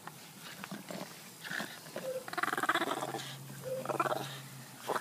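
A Boston terrier growling in play while tugging at a frisbee, in two rough growls: a longer one about two seconds in and a shorter one near four seconds.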